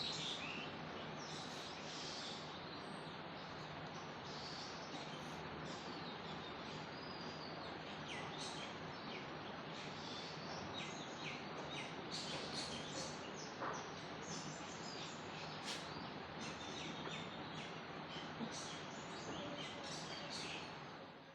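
Small birds chirping, with many short, scattered calls over a steady background hiss, fading out near the end.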